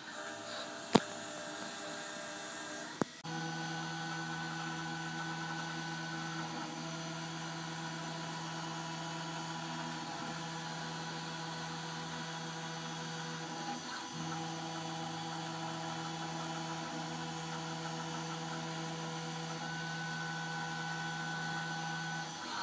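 Roland MDX-40 desktop mill engraving a sign blank: its spindle and motors run with a steady multi-tone whine and hum, and a higher whine comes and goes. A sharp click about a second in, and another near three seconds, before the steady running.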